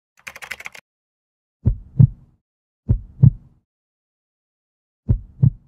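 Heartbeat sound effect: three 'lub-dub' double beats, low and short, the second beat of each pair the louder. It is preceded by a brief high, sparkling shimmer about a fraction of a second in.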